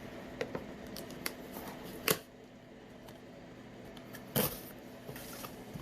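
Hands handling a phone's retail box and packaging: light rustles and small clicks, with two sharper knocks about two seconds in and about four and a half seconds in.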